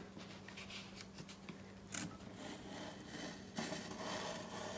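Craft knife blade being drawn through poster board on a cutting mat, a faint scraping cut that grows stronger about three and a half seconds in; the blade is one its user finds a little dull.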